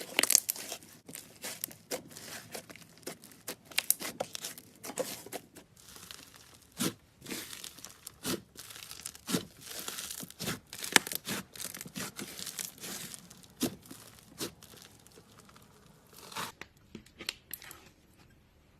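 Slime being squished and stretched by hand: a dense run of crackles, pops and sharp clicks that thins out near the end to a few scattered ticks.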